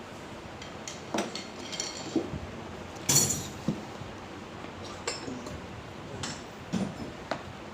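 Metal tools and parts clinking and knocking while a BMW G12 front air-suspension shock absorber is taken apart: about ten separate light strikes, some with a brief metallic ring, the loudest about three seconds in.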